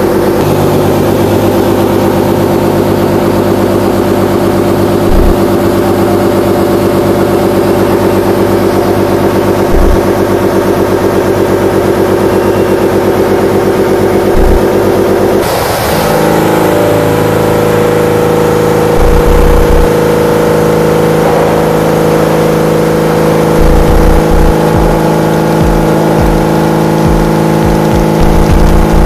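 OKK HMX-6000 horizontal machining center milling metal: a 125 mm face mill cutting at 500 rpm gives a loud, steady cutting tone. About halfway through the sound changes abruptly to a different steady cut, the R15 ball end mill running at 1,600 rpm.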